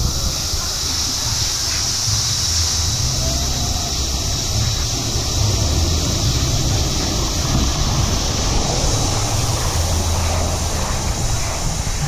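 Rushing water on a high-speed body water slide: a steady hiss over a low rumble.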